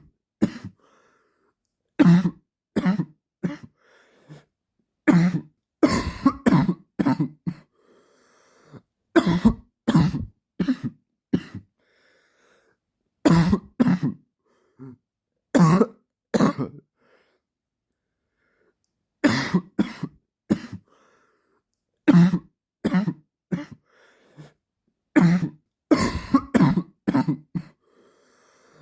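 A man's dry cough, coming in about seven fits of several quick coughs each, with short silent pauses between the fits.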